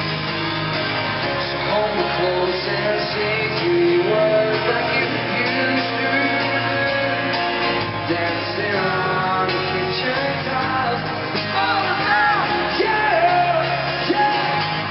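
Pop-rock band playing live in an arena, with sung vocals over guitar and band accompaniment.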